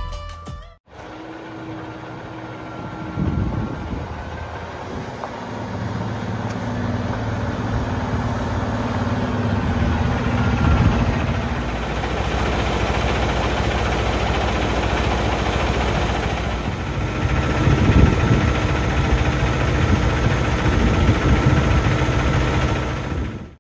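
Peterbilt 579 semi truck's diesel engine running at idle, swelling louder a few times.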